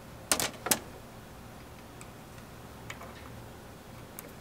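Sharp metallic clicks from a hand-held bicycle cable cutter being handled, a quick pair followed by a third, then a few faint ticks.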